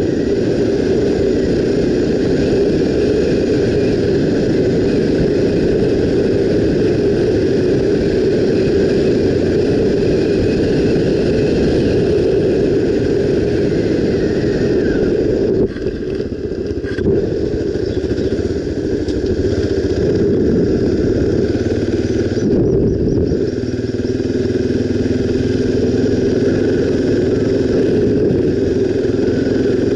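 Honda XR 250 Tornado's single-cylinder four-stroke engine running under way, a steady loud drone that eases off briefly a couple of times past the halfway point.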